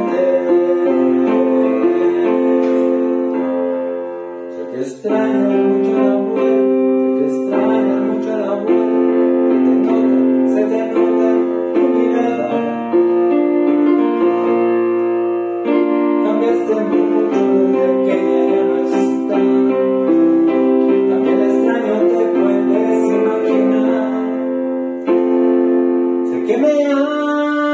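Electronic keyboard played by hand: slow, sustained chords that change every second or two, with a brief drop in loudness about four seconds in.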